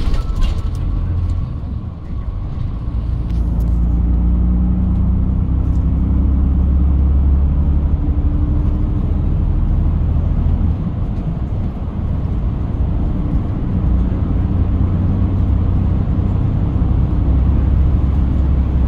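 Shuttle bus engine and road noise heard from inside the cabin while driving through a tunnel: a steady low rumble with a faint engine hum that rises and falls a little.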